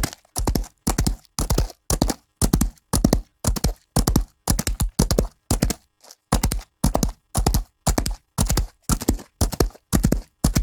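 Rhythmic knocking, evenly spaced at about two knocks a second, each knock sharp with a deep low end.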